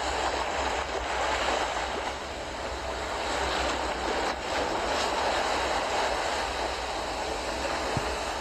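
Steady rushing of water, with a low rumble underneath, from storm runoff or floodwater.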